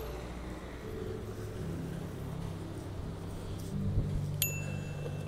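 Outdoor street ambience dominated by a steady low engine hum, like a vehicle idling or moving slowly close by. A single sharp click with a brief ringing ping comes about four seconds in.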